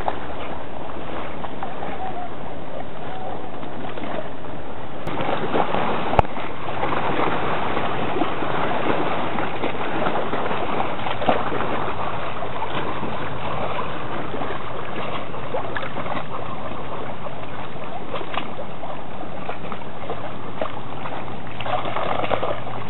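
Lake water lapping and splashing around a dog as it swims and then wades through the shallows, getting louder about five seconds in.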